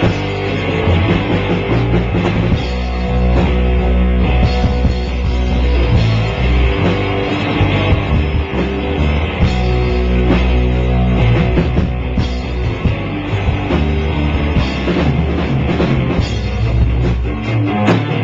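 Loud rock music with a drum kit, playing continuously.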